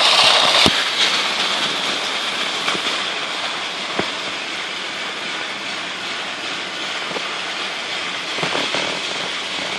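Battery-powered toy trains running on plastic track: a steady whirring of small motors and wheels, loudest at the start as the toy EH200 locomotive and its freight wagons pass close by, then fainter. A few sharp clicks stand out, one about a second in and another about four seconds in.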